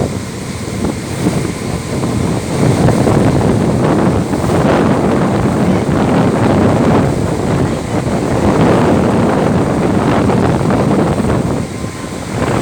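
Strong wind buffeting the microphone in gusts that swell and ease.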